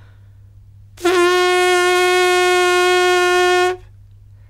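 A trumpeter's lips buzzing on their own, without mouthpiece or instrument: one clear, steady buzzed note held for nearly three seconds, starting about a second in. It is the basic lip buzz, the vibration that makes a trumpet's sound.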